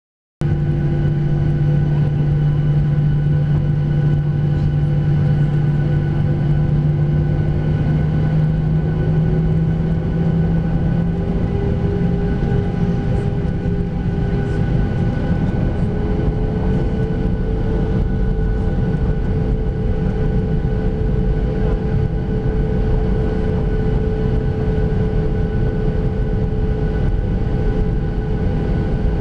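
Aeroplane engines at takeoff power heard from inside the cabin: a loud, steady roar with several steady tones on top, one of them a whine that rises slowly in pitch over the first half.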